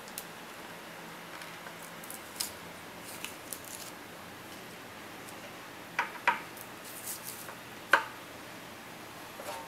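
Light clicks, taps and scraping as cut-out pieces are pried free from a freshly milled plate and lifted off the CNC mill's bed among the chips. A pair of sharper clicks comes about two-thirds of the way in, and a louder single click near the end.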